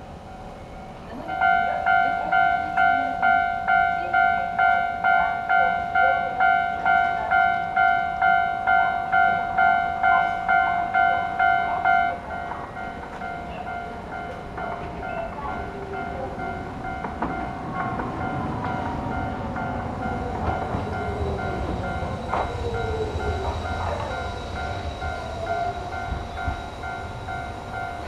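Japanese level-crossing alarm ringing, a two-tone electronic ding about twice a second, starting about a second and a half in and dropping in level about twelve seconds in. Over the second half a Hiroshima Electric Railway train approaches, with a low rumble and gliding whines.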